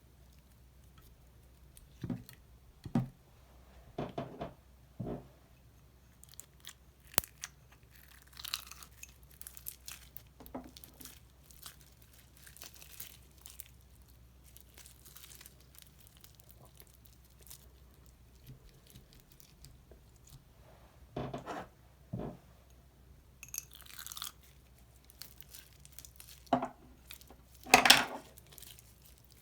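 Slime being mixed and squeezed, giving short squelches, pops and crackles at uneven intervals, with the loudest squelch near the end.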